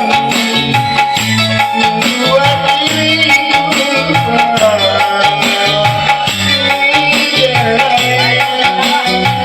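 Music: a song with a stepping bass line, a wavering melody and steady shaken-rattle percussion.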